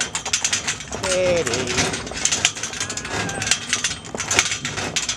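Chain traces of a horse's cart harness rattling and clinking against the hollow shafts of a horse-drawn lorry as the horse pulls it: a dense, irregular jangle of metal clinks. The handlers find the noise annoying and think filling the shafts with foam would deaden it.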